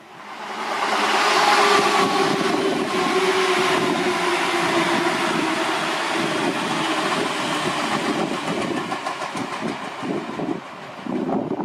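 Seibu 4000-series electric train passing close by: the sound swells up within the first second and holds, with a steady whine that falls slightly in pitch. In the second half the wheels clatter over rail joints.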